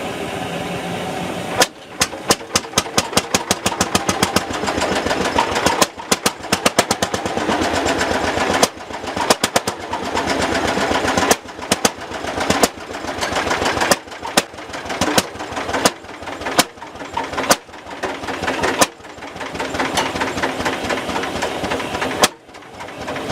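Lanz Bulldog's single-cylinder hot-bulb two-stroke engine catching after nearly two seconds of steady hiss. It then runs with a fast, sharp knocking beat of about seven knocks a second, which keeps faltering and picking up again.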